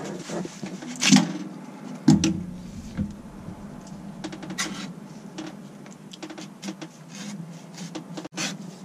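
Kitchen knife shaving and cutting into the fibrous husk of a young green coconut: a string of short, irregular scraping cuts, with two louder knocks about one and two seconds in.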